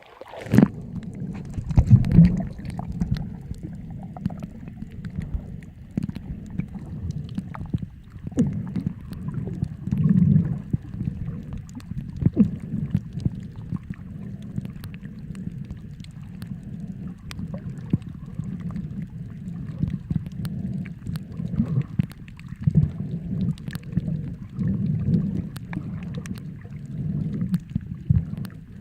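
Underwater ambience picked up by a camera under the sea: a steady low rumble of moving water that swells every couple of seconds, with faint scattered clicks over it.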